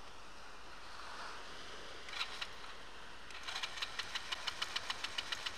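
Small ATV engine chugging at a slow, uneven idle, with sharp regular pops about six or seven times a second starting a little past halfway in. The engine is struggling after being soaked by a wave, which the rider blames for it stalling.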